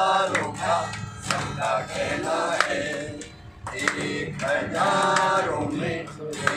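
Voices singing a Hindi song together, with an acoustic guitar strummed along.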